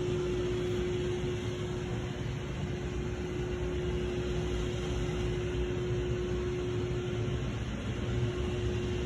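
Steady mechanical hum: an even rushing noise with one constant mid-pitched tone running through it, as from air-handling or running machinery.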